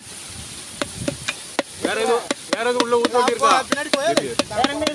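Knife chopping and mincing cooked tuna in a large metal pot, sharp strokes at about three a second. People talk over the strokes from about two seconds in.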